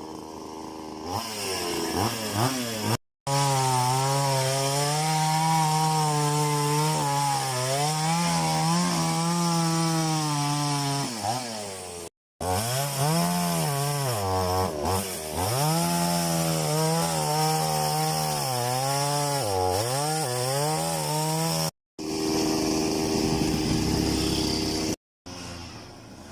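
Chainsaw running at high revs and cutting into a tree trunk, its pitch repeatedly dipping under load and recovering. The sound is broken by several abrupt cuts to silence.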